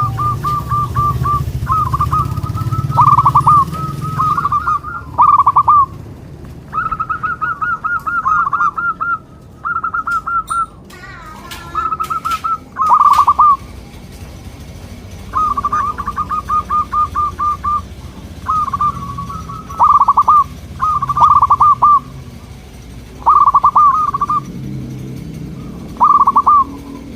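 Zebra dove (perkutut) cooing. Phrase after phrase of rapid staccato notes, each ending in a few drooping coos, with short pauses between phrases.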